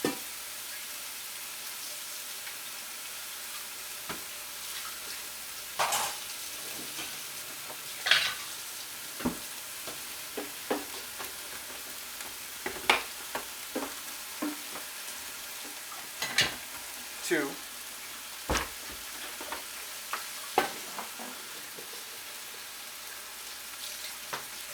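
Chicken and vegetables sizzling steadily in a pan, with a dozen or so scattered clinks and taps of a spoon and containers while sauces are measured out.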